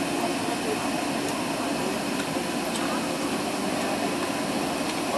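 Steady airport background noise: a constant, even rush with no distinct events.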